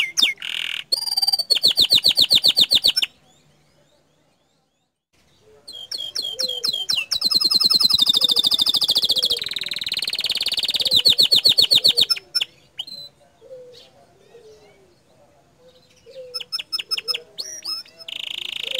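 Domestic canary in full, rapid song: bursts of fast rolling trills and high whistled notes. The song breaks off into silence for about two seconds a few seconds in, then resumes, with a softer, sparser stretch of notes later on.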